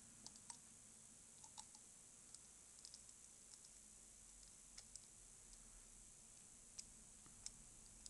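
Faint, irregular small metallic clicks of a precision screwdriver's tip working against a brass lock cylinder, as the picked lock is being taken apart to look inside.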